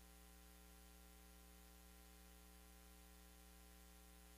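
Near silence: a faint steady electrical hum with a light hiss.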